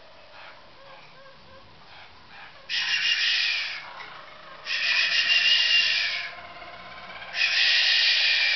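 Harzer roller canaries singing: after a soft stretch come three loud, long rolling song phrases, starting about three, five and seven and a half seconds in, each lasting a second or more with short quieter gaps between.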